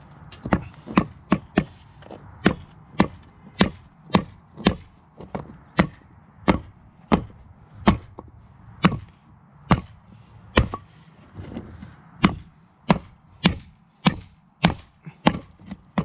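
Metal ingot mold knocked again and again against a concrete paver, sharp knocks one or two a second, to shake a freshly cast aluminum ingot loose from the mold.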